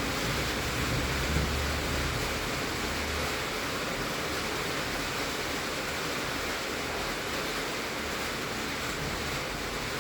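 Heavy rain drumming steadily on a tin (sheet-metal) roof, an even dense hiss. A low rumble underneath fades out a few seconds in.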